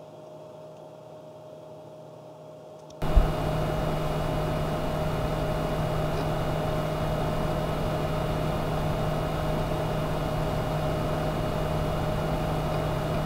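Desktop computer's cooling fans running steadily: a whir with a low hum and a faint higher whine. About three seconds in it jumps suddenly louder and fuller, as the recording switches from the Panasonic HC-V700 camcorder's built-in microphone to the BOYA BY-PVM1000L shotgun microphone.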